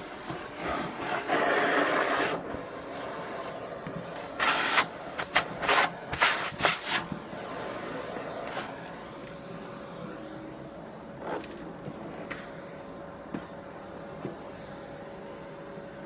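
Canister vacuum cleaner running steadily with a constant motor whine. A run of short, sharp rustling and sucking noises comes in the middle, with a few fainter ones later.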